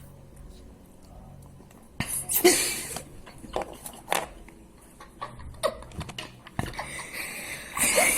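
Wet mouth sounds with water close to the microphone, irregular slurps and splutters starting about two seconds in, with a few short giggles.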